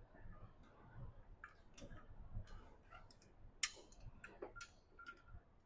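Faint, irregular clicks and light metal taps as a tractor rock shaft housing is lowered on its lifting gear, with one sharper click about three and a half seconds in and a few short squeaks near the end.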